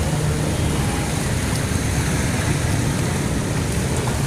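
Heavy rain falling, a steady even noise with a strong low rumble underneath.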